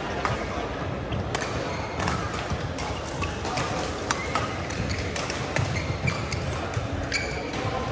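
Racket-sport match play: a scatter of sharp hits and knocks over steady background noise.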